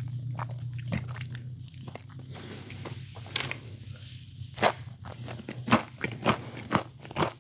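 A person chewing and biting pizza: irregular crunchy bites and wet mouth clicks, with several sharp, loud crunches in the second half.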